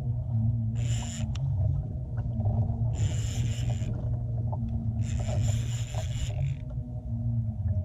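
Fishing reel being cranked in short bursts while a hooked fish is fought, four spells of rasping gear noise about a second each, over a steady low drone.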